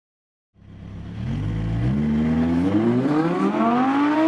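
Audi R8 V10 Plus's 5.2-litre FSI V10 with its sports exhaust, accelerating as the car pulls away. The engine note fades in about half a second in, holds low briefly, then rises steadily in pitch through the gear.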